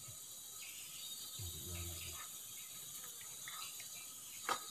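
Steady flow of a small stream under a high, even insect drone, with one sharp click near the end as a spinning rod is swung into a cast.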